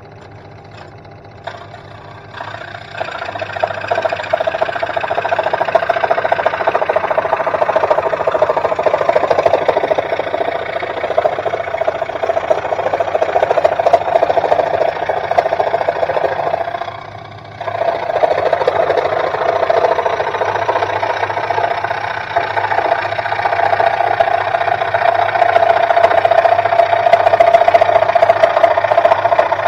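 Sealey SM1302 scroll saw running, its blade cutting through wood: quieter for the first couple of seconds, then a loud, steady sawing buzz once the blade bites into the workpiece. The cutting sound drops briefly a little past the middle and then picks up again.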